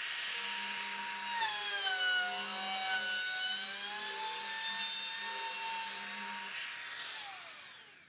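DeWalt compact trim router running as it cuts the edge profile of a plywood workpiece; its high whine sags in pitch as the bit loads up in the cut about a second and a half in, then recovers. Near the end it is switched off and winds down, the whine falling in pitch and fading.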